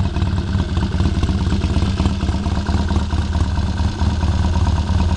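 1964 Triton cafe racer's Triumph parallel-twin engine idling steadily, chokes off, warming up after a cold start.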